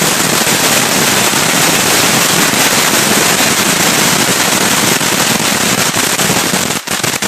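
Consumer firework fountain with a crackle effect, burning with a loud, dense, continuous crackling; near the end the crackle thins into separate sharp pops as the fountain burns out.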